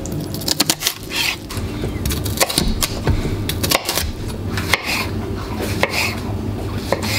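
Kitchen knife chopping vegetables on a wooden chopping board: irregular knocks of the blade striking the wood, over a steady low hum.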